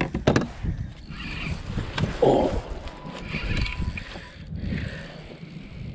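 Spinning reel being cranked as a bass is played from a fishing kayak, with a couple of sharp knocks of rod and gear against the kayak right at the start.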